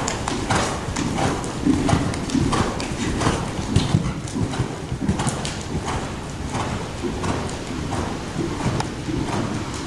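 Hoofbeats of a Hanoverian gelding trotting on soft arena footing: a steady run of dull thuds, about two to three a second.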